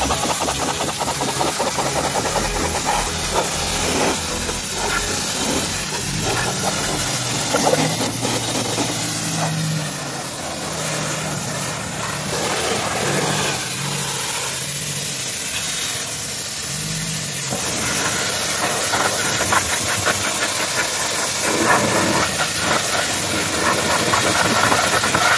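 Pressure washer jet spraying a car's lower door panel and rear wheel: a steady hiss of water, with the washer's motor humming underneath.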